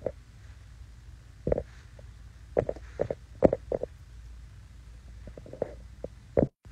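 Fingertip taps on a smartphone's touchscreen, picked up by the phone's own microphone: about ten short, irregular taps over a low hum. The audio cuts off suddenly near the end.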